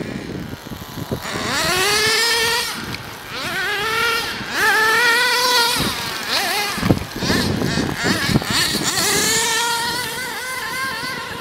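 Radio-controlled off-road truck's motor revving in repeated bursts, each rising in pitch as the truck accelerates and then holding with a wavering, buzzy pitch as it runs over the dirt. There is a short sharp knock about seven seconds in.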